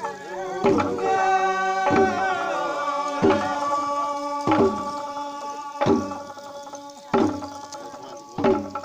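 Traditional Papua New Guinean singsing: a group of voices chanting in long held notes over a drum struck at a steady beat, about once every 1.3 seconds.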